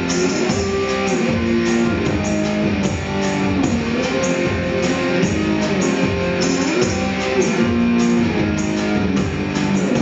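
Live band playing an instrumental passage with no vocals: a lap steel guitar holds and slides between notes over a drum kit keeping a light, steady beat.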